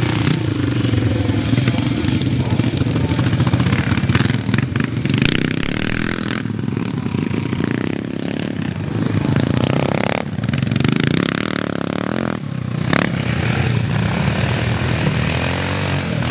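Engine of a vintage CCM four-stroke single-cylinder scrambler being ridden round a grass track, revving up and down through the turns with its note rising and falling.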